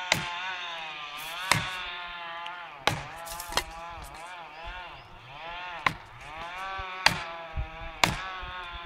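Chainsaw cutting into a beech trunk during felling, the engine running at high speed with its pitch dipping and recovering as the chain takes load. Sharp knocks come every second or so over the engine.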